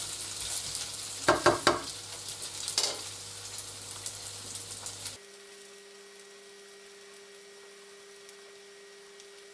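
Schupfnudeln frying in oil in a nonstick pan: a steady sizzle, with a wooden spatula knocking and scraping in the pan a few times in the first three seconds. About five seconds in the sizzle cuts off abruptly, leaving only a faint steady hum.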